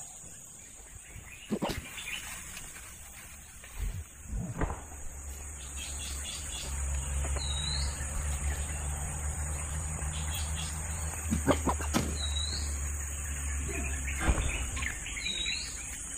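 Steady high-pitched insect drone with three short bird chirps over it, plus a low rumble through the middle and a few sharp knocks, the loudest about twelve seconds in.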